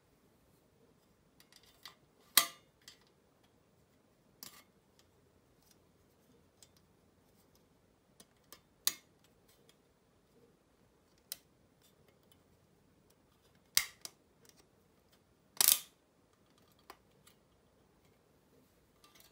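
Thin aluminium weather-vane parts clicking and tapping as they are handled and fitted onto their bolts by hand. Sharp, irregular clicks a few seconds apart, the loudest about two seconds in and again about sixteen seconds in.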